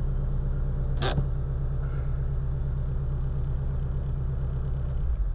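Shelby GT350's 5.2-litre flat-plane-crank V8 running steadily at low engine speed with the exhaust in quiet mode, with one short sharp click about a second in and the engine note dropping near the end.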